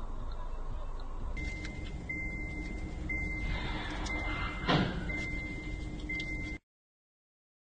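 Road noise heard from inside a car, joined by a high beep repeating about once a second, each beep nearly a second long with short gaps. About three seconds later comes a single sudden crash, the loudest moment, as two cars collide ahead. The sound then cuts out abruptly.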